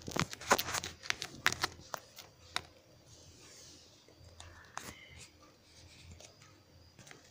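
Sharp clicks and scrapes against leather upholstery, thick in the first three seconds, then fewer and softer. A faint voice-like sound comes about four and a half seconds in.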